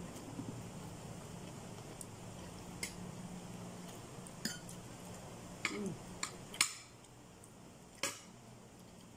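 Cutlery clinking against a plate while eating: a handful of separate sharp taps a second or so apart, the loudest about two-thirds of the way in, over a low steady hum.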